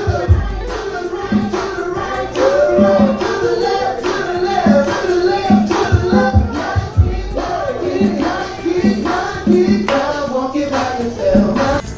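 Music with singing voices over a beat.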